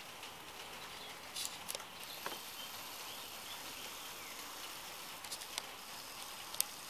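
Steady rain falling, an even hiss, with a few sharp ticks scattered through.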